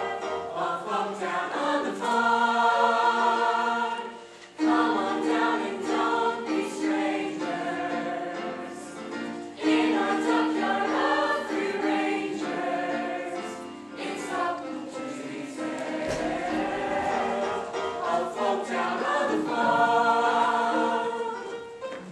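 Teen theatre cast singing a chorus number together in harmony, holding long chords.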